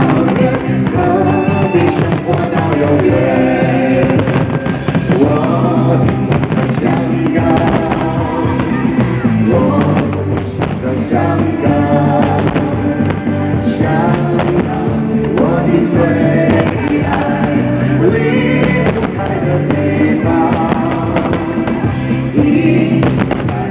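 Pop music with a singing voice, with the bangs and crackles of firework bursts scattered throughout.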